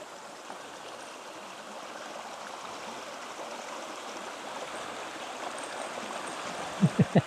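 Steady rushing of a mountain creek flowing over rocks and small cascades. Near the end, a man's voice makes three short sounds in quick succession.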